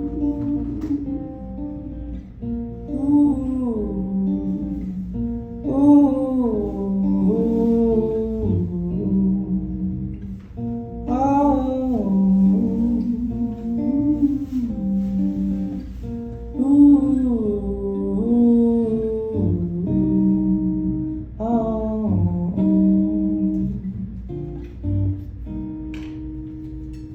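Acoustic guitar playing with a wordless sung melody gliding over it, the closing part of a gentle acoustic song; it thins out and softens near the end.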